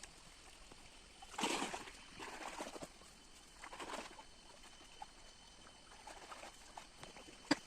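Close-miked eating sounds: someone chewing and taking mouthfuls of a meal of rice, fish and greens, in several short bursts, the loudest about a second and a half in, with a sharp click near the end.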